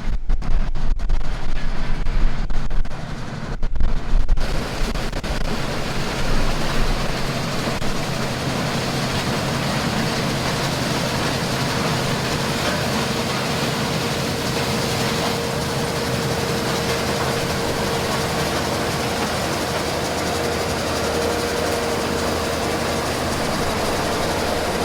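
International 1460 combine running steadily in the field harvesting corn: a continuous machine drone with a faint steady whine coming in partway through. The first few seconds are an uneven rumble before the sound settles.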